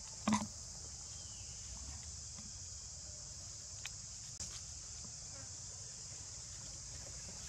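Insects droning in the forest: a steady high-pitched buzz. A short, loud sound comes about a third of a second in, and two faint ticks near the middle.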